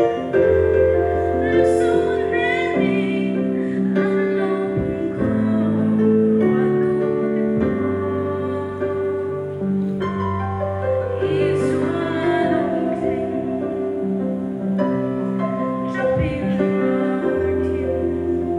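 A song being sung with instrumental accompaniment, a slow melody with long held notes.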